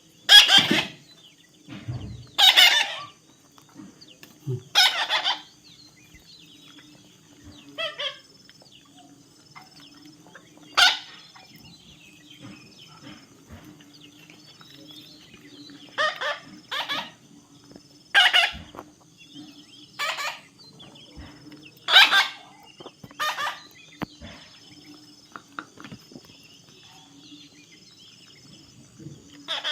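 Baby parrot screeching in short, harsh squawks, one every one to three seconds with a longer lull in the middle, over a faint steady hum.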